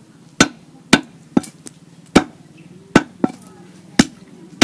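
A heavy cleaver chopping raw lamb on a wooden chopping block: about eight sharp, unevenly spaced strikes of the blade through the meat into the wood.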